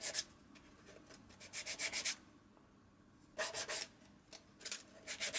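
Hand-sanding the edges of a small wooden model kit with wet-and-dry paper to smooth them: several short spells of quick scratchy rubbing strokes with quiet gaps between, the longest run of strokes about a second in.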